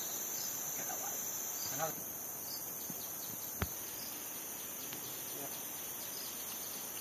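Insects such as crickets keep up a steady high-pitched buzzing chorus. A brief chirp comes about two seconds in, and a single sharp click about halfway through.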